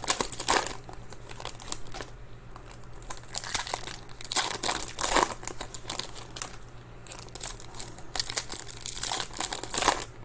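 Foil trading-card pack wrappers being torn open and crinkled by hand, in irregular rustling bursts.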